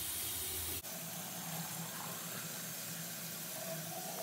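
Water draining from a filled sink down through the brass tailpiece and PVC P-trap, a steady rushing hiss, as the drain is tested for a leak. The sound changes abruptly about a second in.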